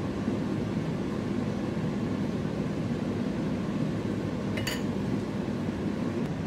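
Steady mechanical hum and hiss, like a running fan, with one short sharp click about three-quarters of the way through.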